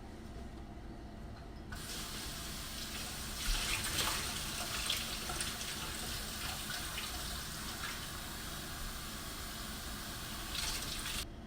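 Water poured into a cooking pot of sauce, a steady splashing pour that starts about two seconds in and stops suddenly just before the end.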